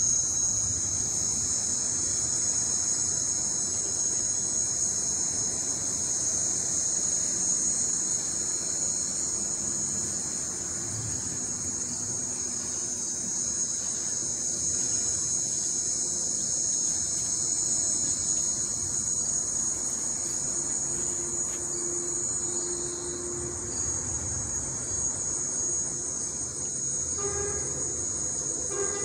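Dense chorus of crickets trilling, a steady high-pitched sound that holds throughout.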